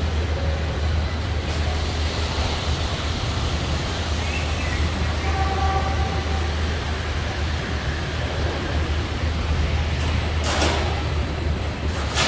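Assembly-plant machinery running, a steady low hum under continuous mechanical noise, with faint brief tones from equipment. A short, sharp hiss about ten and a half seconds in.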